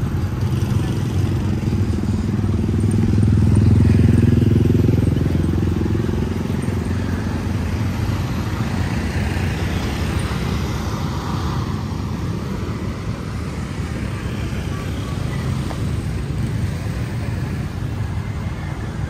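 Road traffic with vehicle engines running past. One vehicle passes close and is loudest about four seconds in, then a steady rumble of traffic continues.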